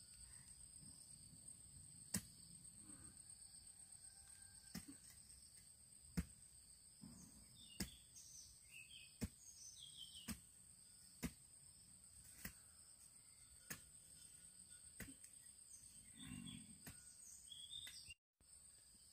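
Sharp single knocks, about one every second or so, over a steady high-pitched insect drone.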